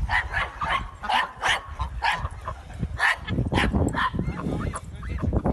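Small dog barking and yipping excitedly, many short barks in quick succession over a steady low rumble.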